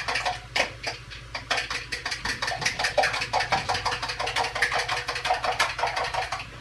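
Eggs and milk being beaten by hand: a rapid, even clicking of the utensil against the container, several strokes a second.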